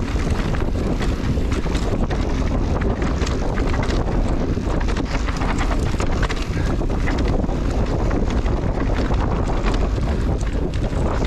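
Wind buffeting the camera microphone during a mountain-bike ride down a trail, with frequent small clicks and rattles from the bike over rough ground.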